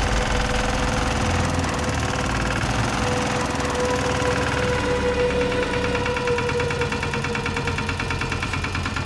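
Walk-behind two-wheel tractor with a rotary tiller, its small engine running steadily with a constant whine.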